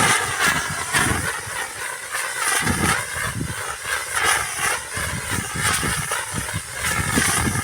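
Firework burning with a loud hiss and a warbling whistle that rises and falls over and over, with irregular low crackles.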